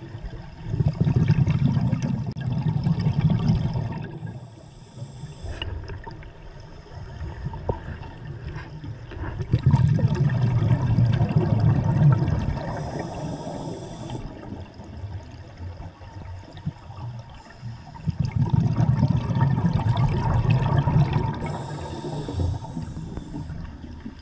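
Scuba diver breathing through a regulator, heard underwater: three long bursts of exhaled bubbles rumbling and gurgling, with a short, quieter hiss of inhalation between them.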